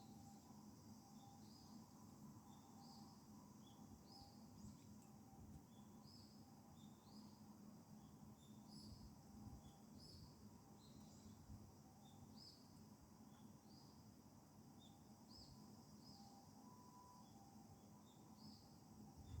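Near silence, with faint high chirps repeating irregularly about once a second from a small calling animal.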